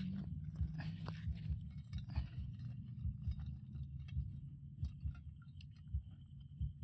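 Crabs being handled in a steel bowl: irregular quick clicks and scrapes of shell against metal, over a low steady rumble.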